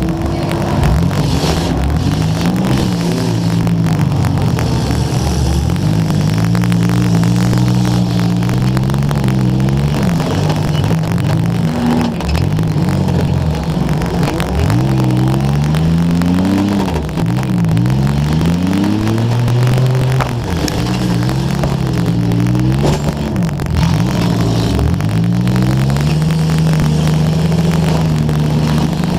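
Demolition derby car's engine revving up and down over and over as the car accelerates and backs off. Crackling static from a wet camera microphone runs underneath.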